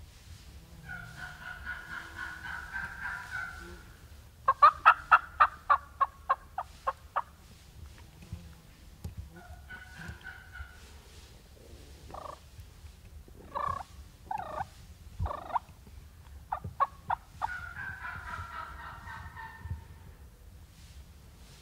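Wild turkey gobbler gobbling three times, in warbling rattles. Between the gobbles comes a loud run of about a dozen turkey yelps that fade away, then a few single yelp notes.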